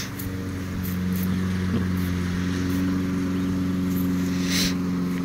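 Steady drone of a large number of honeybees buzzing in the air around the open hive, with a brief spray-bottle hiss near the end.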